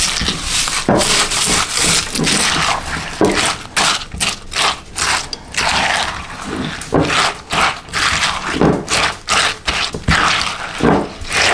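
Spatula stirring cornflakes through melted chocolate in a ceramic bowl: irregular scraping strokes against the bowl, with the flakes crunching and rustling.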